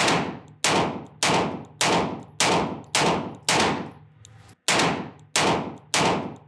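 Semi-automatic handgun fired in a rapid string, about one shot every 0.6 s: seven shots, a pause of about a second, then three more, with another right at the end.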